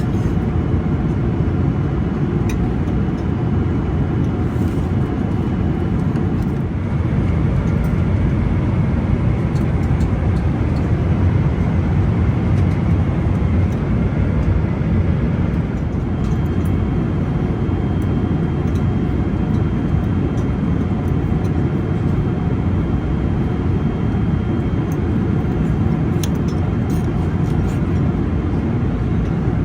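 Steady cabin noise of a Boeing 777-300ER in cruise: a constant low rush of airflow and engine drone, with a few faint clicks.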